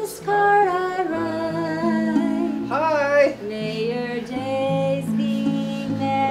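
Background music: a voice singing a melody over plucked guitar.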